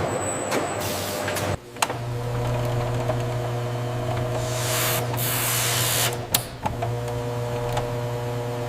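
Factory machinery running with a steady low hum. It cuts out briefly about one and a half seconds in and falters again around six and a half seconds, with a few sharp clicks where it breaks.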